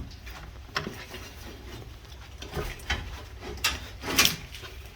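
Scattered light clicks and knocks of hand tools being handled, about half a dozen separate strokes, over a low steady hum.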